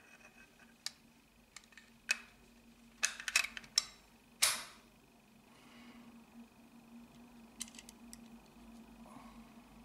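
Sharp metal clicks and clacks as the barrel and upper receiver of a Smith & Wesson SW22 Victory pistol are fitted onto its frame. A quick cluster comes about three seconds in, followed by a short metal scrape, and then only a few light ticks.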